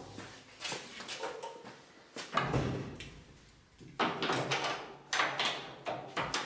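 A storage-unit door being worked at: a run of clicks and rattles, with heavier clunks a couple of seconds in and again about four seconds in.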